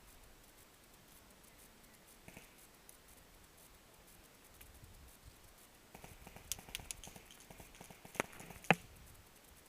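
Scattered light clicks and knocks, then two sharp, loud cracks about half a second apart near the end, the second the loudest.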